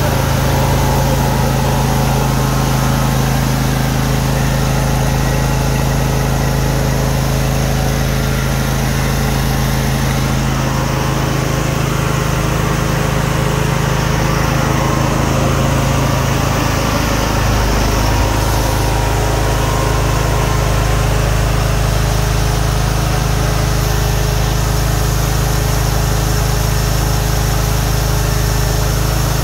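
Heron 8896430 11 kW petrol generator's engine running at a steady speed. The low tone of the running shifts slightly a little past halfway, then stays steady again.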